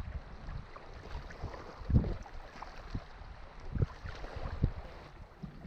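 Wind buffeting the microphone outdoors, with a few low bumps about two, four and four and a half seconds in.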